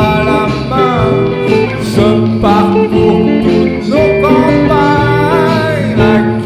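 Country-style song with acoustic guitar in an instrumental break, a lead melody sliding between notes over the accompaniment.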